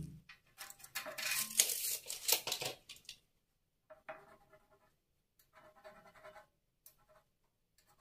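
Ballpoint pen scratching marking lines onto metal cable trunking: a loud rasping stretch in the first three seconds, then shorter, fainter strokes with a slight squeak.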